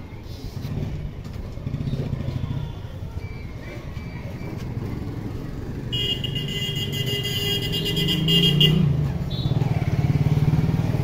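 Street traffic: a motorcycle engine running nearby. A vehicle horn sounds steadily for about two and a half seconds in the middle.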